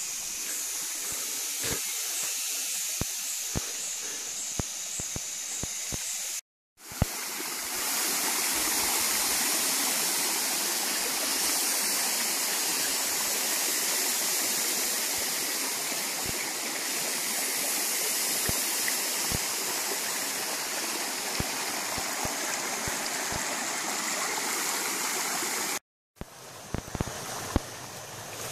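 Steady rushing of a jungle stream's flowing water, with scattered light clicks and snaps. The sound cuts out twice, and in the long middle stretch the rushing is louder.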